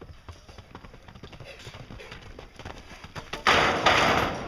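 A horse's hooves knocking and clip-clopping. About three and a half seconds in, a sudden loud rush of noise lasts under a second.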